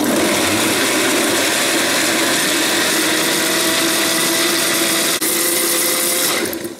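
Countertop blender running steadily at speed, pureeing strawberries with yogurt, sugar and milk into a sauce. The motor winds down and stops near the end.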